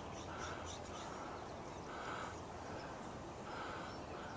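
Wild birds calling: a short, steady note repeated about every one and a half seconds, with a quick series of high notes that speeds up and ends about a second in.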